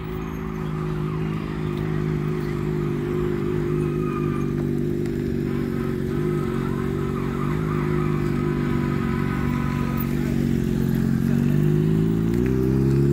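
Motorcycle engine running steadily close by, then revving up with its pitch rising near the end.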